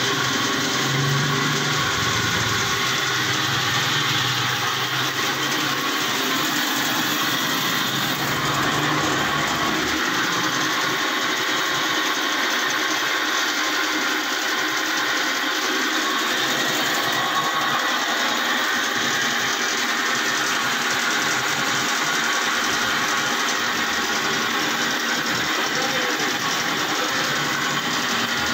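BIRO commercial bandsaw running steadily, its electric motor and blade turning with a constant mechanical hum.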